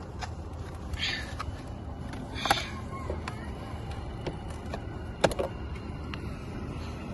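Sharp clicks and light taps of hand work on a car door's plastic trim and courtesy-light housing, with two loud clicks about two and a half and five seconds in, over a steady low hum.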